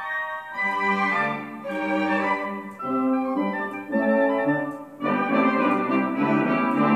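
Instrumental music with held chords and no singing.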